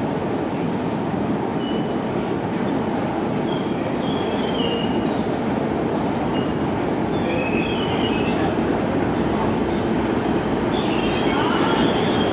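New York City subway train running in the tunnel, a steady rumble that grows louder toward the end, with short high-pitched wheel squeals several times, most strongly near the end.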